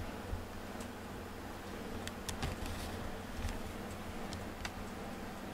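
Quiet room tone with a low steady hum and a few faint, scattered light ticks.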